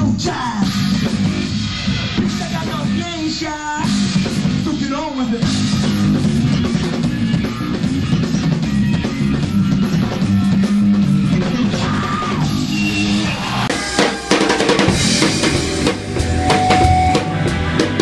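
Live rock band recording: a drum kit, bass and guitar playing hard, with some singing. About 13 seconds in, the sound turns brighter, with sharp snare and drum hits.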